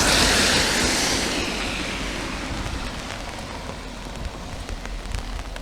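Tyres hissing on a wet road as a vehicle passes, fading away over the first couple of seconds, with steady rain noise beneath.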